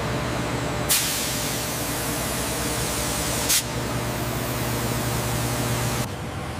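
CNC milling cutter cutting into a steel block under a spray of coolant: a steady spraying hiss over a low machine hum. The hiss turns brighter about a second in, has a short hit midway, and falls back near the end.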